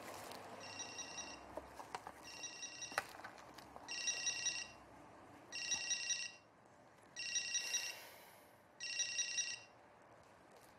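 Mobile phone ringing with a trilling electronic ringtone: six rings about a second and a half apart, the first two fainter, stopping about a second before the call is answered.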